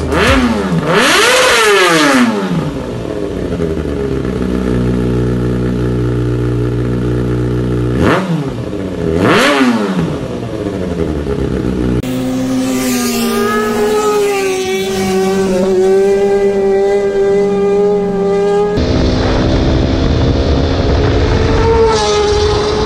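Kawasaki ZX-6R 636 cc inline-four through an SC-Project slip-on exhaust: revved up and dropped back to idle, idling, then blipped twice about eight seconds in. After about twelve seconds it gives a steadier engine note under way, its pitch holding with small rises and falls.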